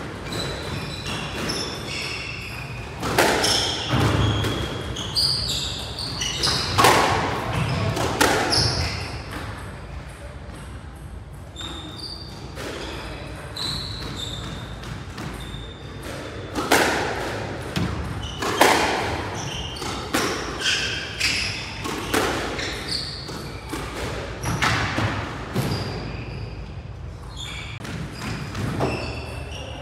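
Squash rally: the ball cracks off rackets and the front and side walls again and again, echoing around the court, with short high squeaks from players' court shoes on the wooden floor between the shots.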